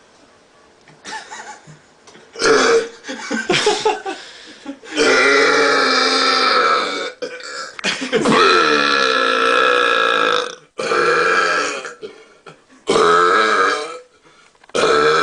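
A man's deliberate, forced belching, a series of loud burps: a few short ones, then two long drawn-out belches of about two seconds each, then more short ones.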